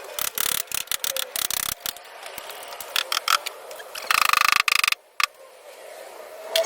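Sharp metallic clicks and clatters of hand tools working on a car's rusted rear body panel, with a short rapid buzzing rattle about four seconds in.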